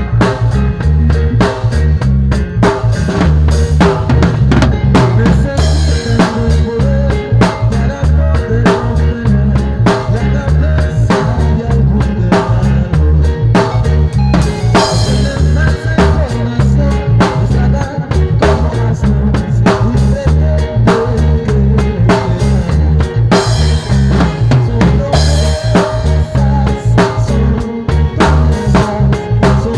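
Music with a drum kit playing a steady beat over a low bass line.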